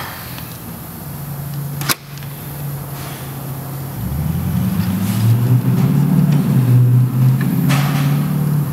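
An engine running steadily, with a low hum that grows louder and rougher about four seconds in. One sharp click about two seconds in.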